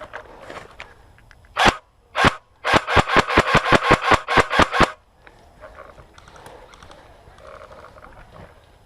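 Airsoft gun shooting: two single shots, then a quick string of about fourteen shots at roughly six or seven a second, stopping about five seconds in.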